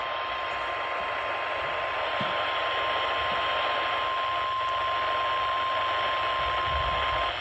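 Weather-radio warning alarm tone: a single steady, pitched beep held for several seconds over heavy static hiss from poor reception, cutting off just before the end. It is the alert signal that heads another tornado warning.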